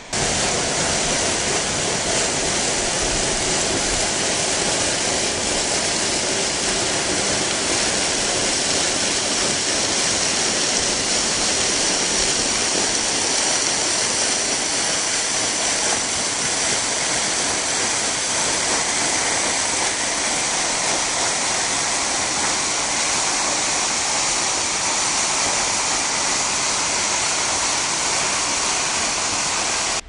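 Waterfall: a steady, loud rush of falling and splashing water.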